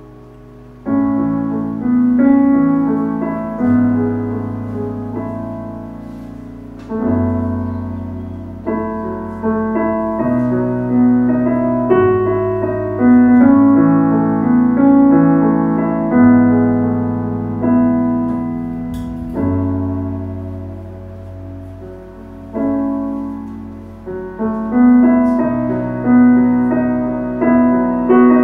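Slow, gentle piano music: chords and notes struck and left to ring and fade, a new one every second or two, beginning about a second in.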